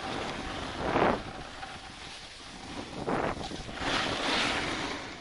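Wind rushing over the microphone of a camera moving down a ski run. It swells in two short rushes about one and three seconds in and again around four seconds, mixed with the hiss of snowboard or ski edges scraping packed snow.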